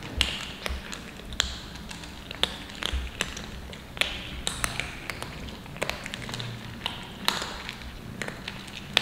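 Several cats crunching dry kibble from a metal tray: a run of irregular sharp clicks and crunches, a few a second.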